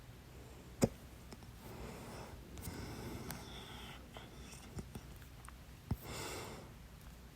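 A person hiccuping: two sharp hiccups about five seconds apart, the first the louder, with audible breathing between and after them.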